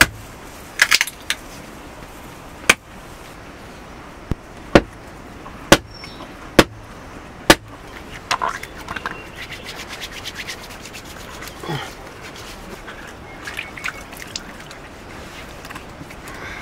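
A knife blade chopping into wood: sharp single knocks about a second apart through the first half, with a quick cluster near the start. Then softer scraping and handling sounds.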